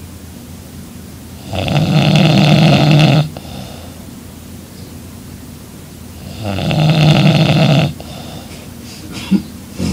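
Young woman snoring loudly in her sleep: two long snores about five seconds apart, with quieter breathing between and two short sounds near the end.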